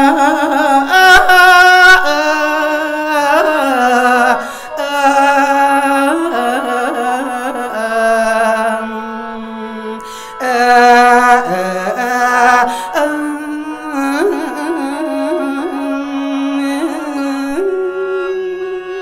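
Khaen, the bamboo free-reed mouth organ, playing a melody over held drone notes through a microphone and PA.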